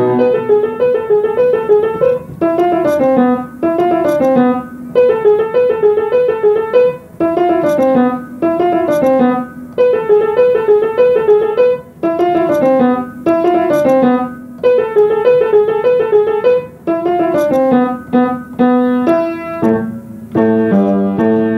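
Piano playing the instrumental close of a pop song. It repeats a figure of quick notes in phrases a second or two long, with brief breaks between them, then moves to a slower run of lower notes near the end.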